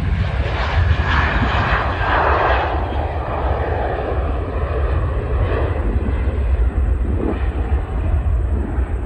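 Airbus A320's twin IAE V2500 turbofans at takeoff thrust as the jet lifts off and climbs away, a loud jet roar strongest about one to three seconds in, then slowly fading, over a deep rumble.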